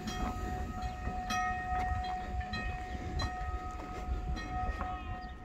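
A rail vehicle sounding a steady horn-like chord of several tones over a low rumble, with scattered light clicks.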